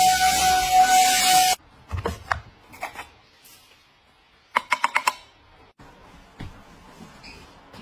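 Small handheld vacuum running with a rushing noise and a steady high whine, cut off sharply about a second and a half in. Then a few plastic clicks as its dust cup is opened, and a quick run of about five sharp taps as the cup is knocked out over a bin.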